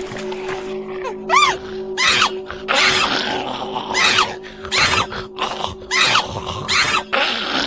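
Background music with a steady drone, overlaid by a string of short, loud cries or screams, about one a second, several of them rising and falling in pitch.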